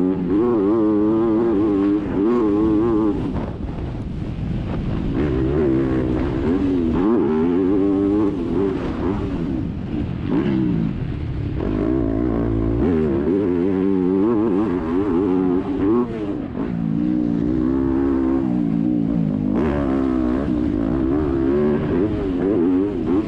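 Motocross bike engine heard onboard, revving hard and falling back again and again as the rider accelerates, shifts and brakes around the track. The pitch climbs and drops every second or two.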